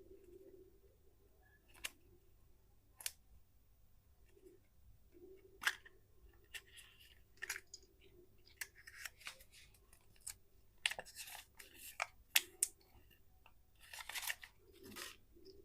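Candy packaging being handled and opened: wrappers crinkling and tearing in short bursts, with scattered sharp clicks, over a faint steady hum.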